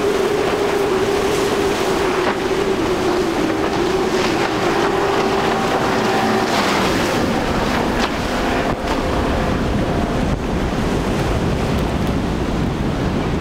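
Twin Yamaha 300 hp outboard motors on a Wellcraft powerboat running at speed, with water rushing off the hull. The engine tone drops lower about halfway through as the boat passes.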